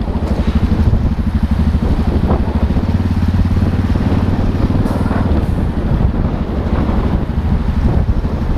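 Motorcycle engine running at low speed, a rapid, steady pulsing beat, with a mixed hum of road and traffic noise.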